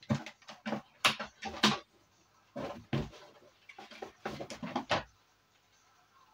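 Knocks and clatters of computer parts being handled and set down, a dozen or so sharp hits over about five seconds.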